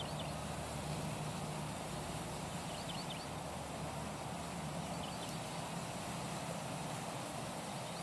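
Outdoor ambience: a steady background hiss with a low hum under it, and a few faint, short, high chirps near the start, about three seconds in and about five seconds in.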